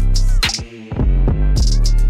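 Background music with a steady beat and heavy bass, drum hits about twice a second.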